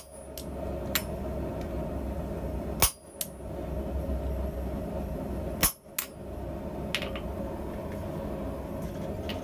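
Hand hammer striking a handled chisel held in tongs, cutting a diagonal line into a flat steel bar on an anvil: about ten sharp metallic blows at uneven intervals, two of them much louder. A steady low hum runs underneath.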